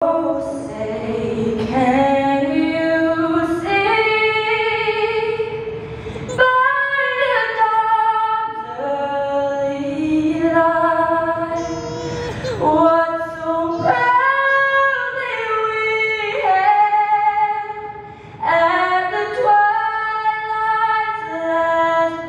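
A young woman singing the national anthem solo and unaccompanied into a handheld microphone. She sings in long held notes, some with vibrato, and takes short breaths between phrases.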